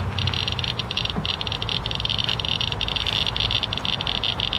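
Inspector EXP Geiger counter chirping very rapidly, its clicks so close together that they run into a dense, irregular rattle. The high click rate is the sign of elevated radiation, about 2 microsieverts per hour on its display. A low rumble lies beneath.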